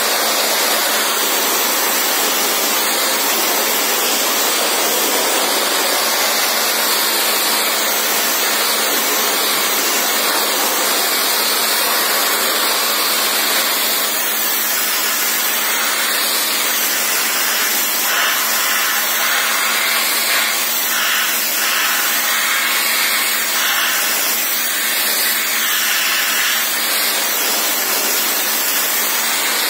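Pressure-washer jet blasting water onto a radiator's fins: a loud, steady hiss of spray over a constant hum from the machine. The hiss shifts in tone as the jet is moved across the core.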